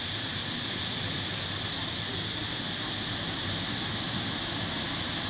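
Steady outdoor ambience: a constant high-pitched insect drone over a low hum, unchanging throughout.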